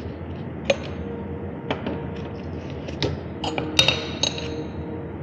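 Metal panel-beating hammers and dollies clinking and knocking against each other as they are picked through in a tool chest drawer, a few separate knocks then a quick cluster of ringing clinks about three and a half seconds in. Music plays faintly in the background.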